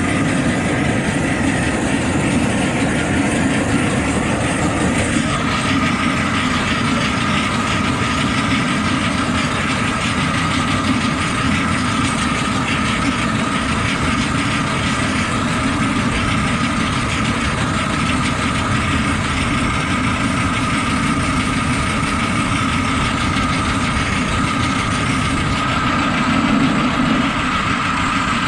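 Ride-on scale live steam locomotive hauling passenger cars along the track, giving a steady running rumble of wheels on rail.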